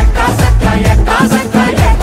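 Loud recorded Telugu dance-song music with a steady, heavy drum beat under a melody that glides up and down.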